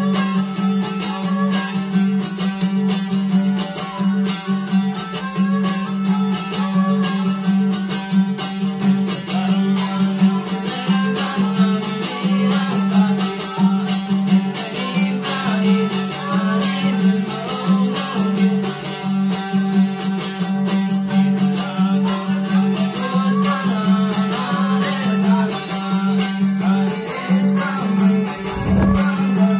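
Baloch folk instrumental: a dambura, a long-necked fretless lute, strummed rapidly on a steady low drone, with a suroz, a bowed fiddle, playing a wavering melody above it.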